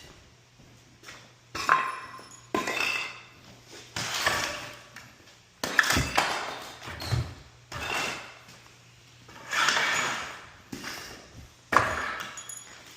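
Tools being handled and put away: a string of knocks and metallic clanks, some ringing briefly, every second or two.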